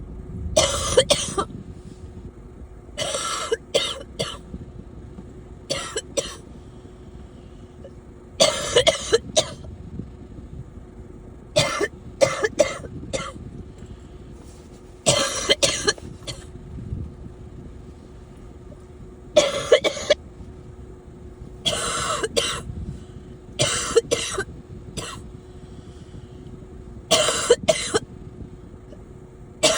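A sick person coughing repeatedly in about ten short fits, each of one to three harsh coughs, a few seconds apart.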